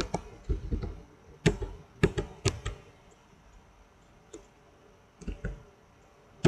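Computer keyboard keys pressed one at a time as data is entered: a quick run of about eight keystrokes, a pause of about two seconds, then a few more keystrokes near the end.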